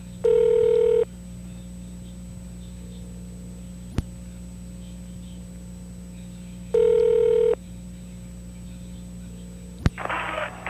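Telephone ring tone heard down a phone line, two short rings about six seconds apart over steady line hum and hiss. A click near the end as the answering machine picks up, and its outgoing message starts playing.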